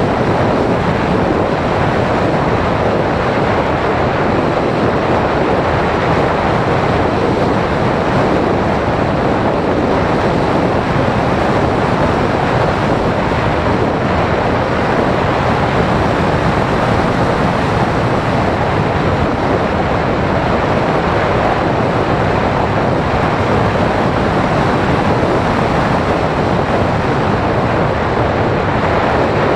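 Steady rush of wind from airflow buffeting the onboard camera's microphone on a Phoenix 1600 RC glider in flight. It is an even hiss without any motor whine.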